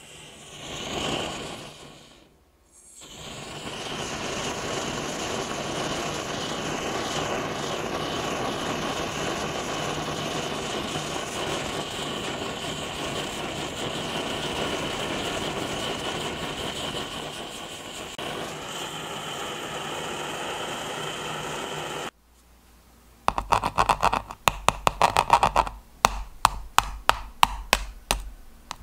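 A handheld kitchen blowtorch flame hisses steadily for about twenty seconds as it caramelizes sugar on top of crème brûlée custard, after a brief hiss about a second in, and then cuts off. A spoon then taps and breaks the hardened caramelized sugar crust, giving a rapid run of sharp cracks.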